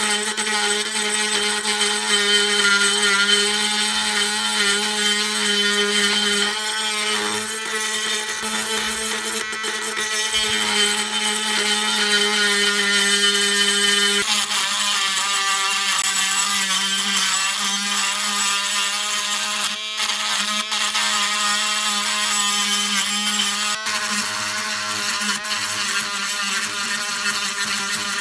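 A power tool running steadily, a constant hum with a strong hiss over it, its tone shifting slightly about six and fourteen seconds in.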